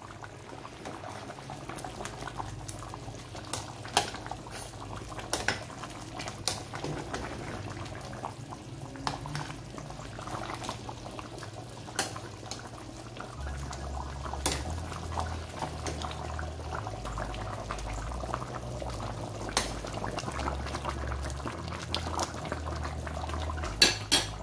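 Beef and potato curry boiling in a steel pot, the thick gravy bubbling steadily, with occasional sharp pops and clicks.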